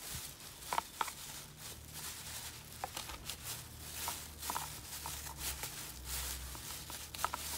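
Black plastic bin bag rustling and crinkling as hands work it inside a basket, with irregular sharp crackles throughout.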